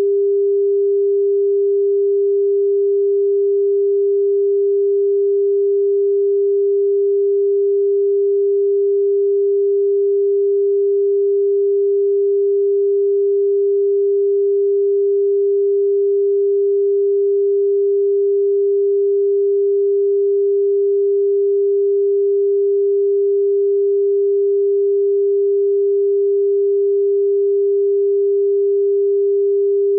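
Television line-up test tone played with colour bars: one pure, steady tone that does not change.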